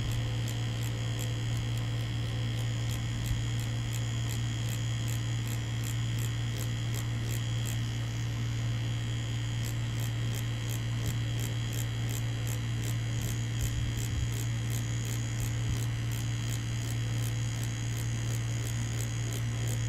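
Mummy Anubis tattoo machine buzzing steadily as the needle works into fake practice skin, a constant low hum with faint regular ticks a few times a second.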